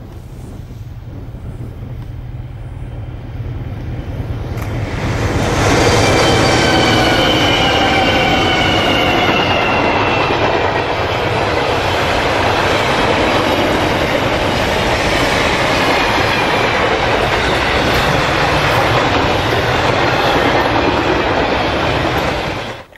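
Diesel locomotives hauling a long container freight train, getting louder as they approach, then passing about five seconds in with a falling whine. After that the wagons roll by in a steady loud rumble and clatter of wheels on rail, which cuts off abruptly near the end.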